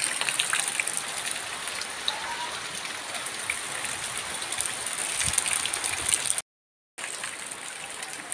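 Rain falling steadily, an even hiss with scattered drips and splashes. It cuts off suddenly for about half a second a little after six seconds, then resumes.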